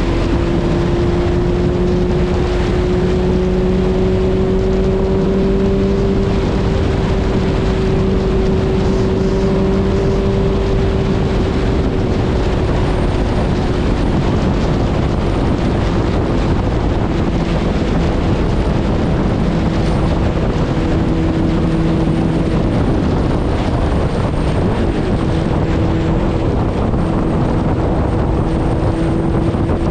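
Suzuki Hayabusa's inline-four engine running steadily at highway cruising speed, its pitch creeping up over the first few seconds and easing back down after about twelve seconds, with wind rushing over the microphone.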